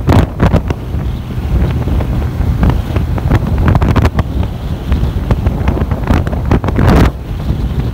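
Loud wind buffeting the microphone of a phone held in the open air by someone riding along a road, with irregular gusts over a low vehicle rumble.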